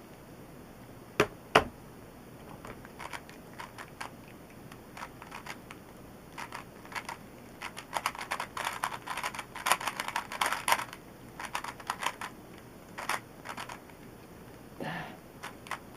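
3x3 puzzle cube turned fast in a speedsolve: runs of quick plastic clicks and clacks, densest in the middle, after two sharp knocks about a second in.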